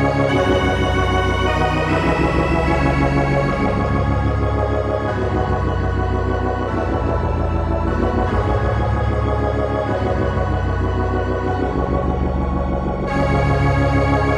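Dungeon synth music: slow, sustained synthesizer keyboard chords over long low bass notes that change every couple of seconds, growing brighter about a second before the end.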